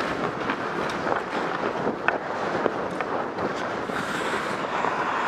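Hockey skate blades scraping and carving on rink ice, a steady hiss broken by scattered sharp clicks of sticks and pucks.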